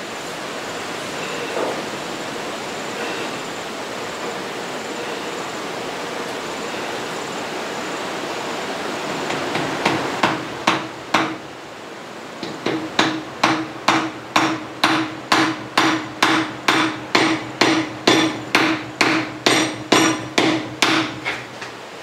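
Mallet tapping a stag-antler handle down onto a knife's tang: a few blows about ten seconds in, then a steady run of about two blows a second, driving the handle home.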